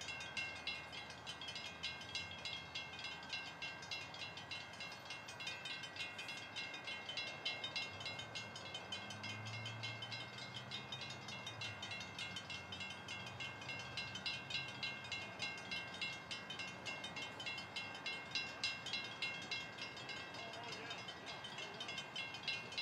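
Railroad grade-crossing warning bell ringing steadily, about two to three strokes a second, as the crossing gates stand down for an approaching train. A low rumble joins for a few seconds around the middle.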